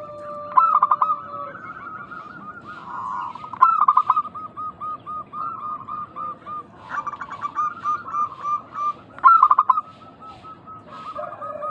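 Zebra doves (perkutut) cooing: strings of short, evenly repeated notes, each string opening with a quick stuttering run, with more than one bird overlapping.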